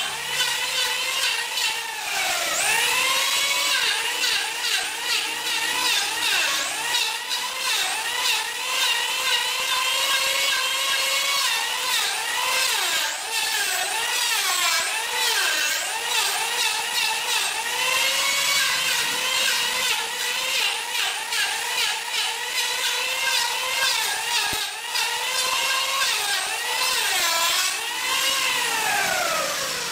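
Electric hand planer running and shaving a curved wooden handrail piece, its motor whine dipping in pitch as the blades bite under load and recovering between passes. Near the end the motor winds down with a falling whine.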